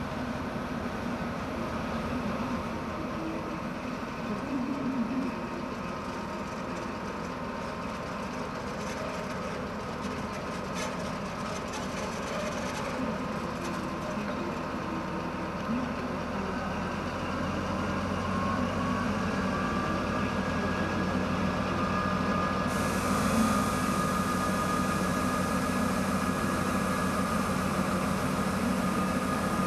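MÁV class 448 (M44) diesel-electric shunting locomotive running while it moves a rake of passenger coaches slowly through the station. Its engine grows louder in the second half, and a rising whine comes in about two-thirds of the way through, then holds steady.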